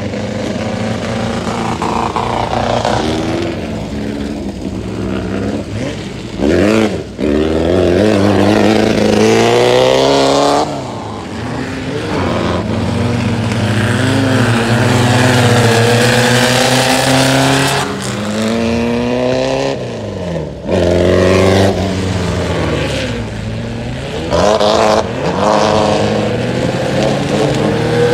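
Volkswagen-engined tubular off-road buggies racing on a dirt track. The engines rev up and drop back several times as the cars accelerate, change gear and pass by.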